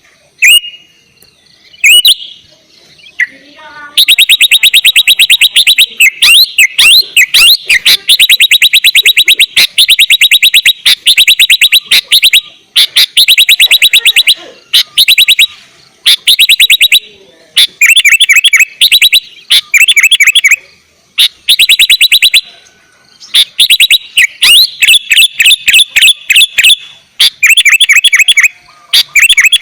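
Sooty-headed bulbul singing in fast chattering trills of rapidly repeated notes, in bursts of one to two seconds with short gaps between them, after a few single call notes at the start.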